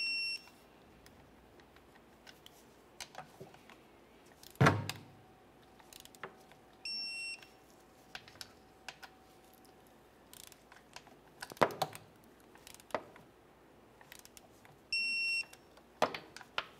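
Digital torque wrench giving three short high beeps, several seconds apart, each signalling that a shift motor mounting bolt has reached the set torque of 22 Nm. Between the beeps come sharp metallic clicks and knocks of the wrench and socket on the bolts, the loudest about four and a half seconds in.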